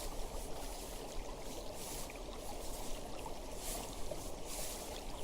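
A river or stream flowing: a steady wash of running, trickling water, swelling and easing in its higher sounds every second or so.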